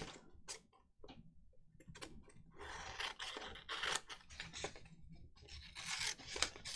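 Scissors cutting through a page of paper in a run of short, irregular snips, with a brief pause about a second in.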